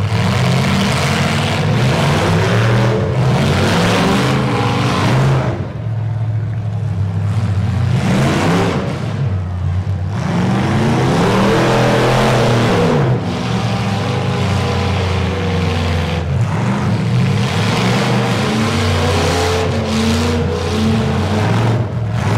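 Demolition derby trucks' engines running hard and revving, with several revs rising and falling about halfway through.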